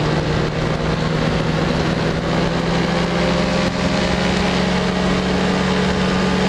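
Powered parachute's engine and propeller running at steady cruise power in flight, a continuous drone over an even rush of air noise.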